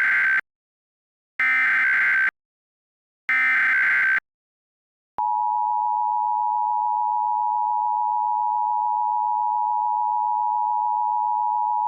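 Emergency Alert System tones from an EAS encoder. First come three short bursts of SAME header data, each just under a second long. Then, about five seconds in, the steady two-tone EAS attention signal (853 and 960 Hz) begins, the signal that precedes an emergency alert.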